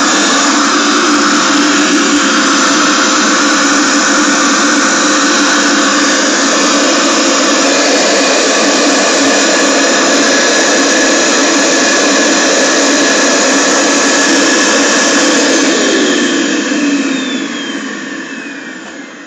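Vacuum cleaner running with a loud, steady whirr, then switched off about 16 seconds in, its motor winding down with a falling whine.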